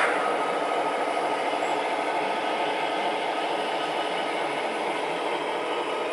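Model trains running on the layout's track: a steady mechanical noise of small motors and wheels, with a faint constant high whine.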